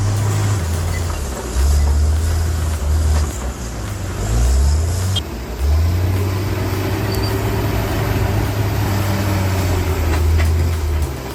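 Heavy equipment's diesel engine running, its low drone rising and falling in steps, with an abrupt change in the sound about five seconds in.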